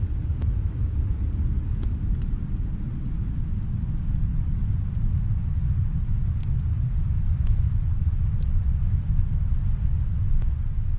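Wood fire crackling in a fireplace: sparse, sharp pops and snaps over a steady, deep rumble of the snowstorm and fire.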